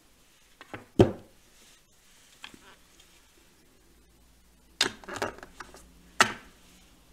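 Hard plastic craft supplies knocking and clattering on a tabletop as ink pads and a stamp are handled and set down: a sharp knock about a second in, a quick run of clatters near five seconds and another sharp knock just after six seconds.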